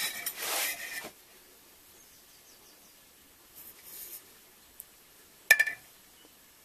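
Handling noise as a stainless steel tube is held and turned close to the microphone: a brief rubbing scuffle at the start, a faint one near the middle, and a sharp click with a short ring about five and a half seconds in.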